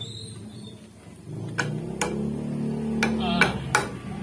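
A few sharp metallic clicks and taps as tools and parts of a dismantled air-cooled diesel engine are handled, over a low hum from about a second in.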